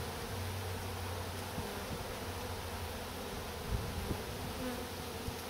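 Honey bees buzzing steadily around a hive entrance, with a couple of soft knocks a little before the four-second mark.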